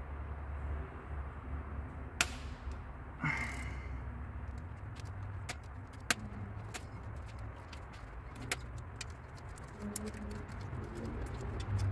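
Hand ratchet with a triple-square bit working the rocker-arm shaft bolts on a VW 1.9 PD TDI cylinder head: a string of sharp metallic clicks and clinks, a louder clack about two seconds in and quicker small clicks near the end.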